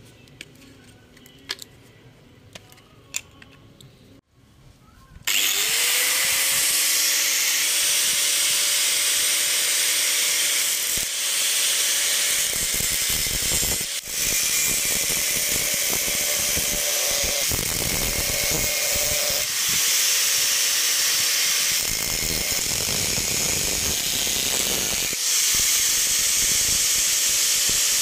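Electric angle grinder with an abrasive cutting disc, switched on about five seconds in and spinning up to a steady whine. It then cuts into the fibrous husk of a whole coconut, with rougher grinding noise and brief dips in pitch as the disc is loaded.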